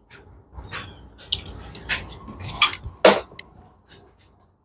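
Irregular metal clinks and scrapes of a wrench working flanged serrated stainless steel nuts onto the transmission mounting studs, with one short falling squeak about three seconds in, the loudest sound.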